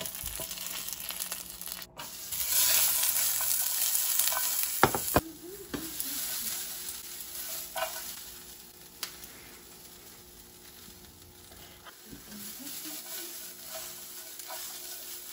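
Red bell pepper strips sizzling in hot oil in a nonstick frying pan, loudest from about two seconds in as they go into the pan. About five seconds in there is a sharp clack of the spatula against the pan, and the sizzle then settles to a fainter hiss, with stirring.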